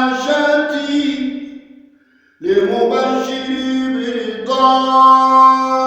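Man's voice chanting a devotional Arabic supplication, drawing out long held melodic notes. The phrase fades out a little under two seconds in, with a short silence before a new sustained phrase begins.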